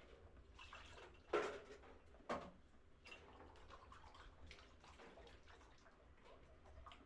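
Faint scattered clicks and rustling of something being handled, with two sharper knocks about a second apart near the start.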